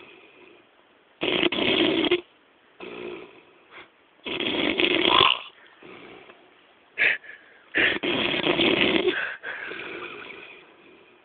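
A man snoring heavily in a drunken sleep: loud, rasping snores about every three seconds, three big ones in all, with quieter breaths between them.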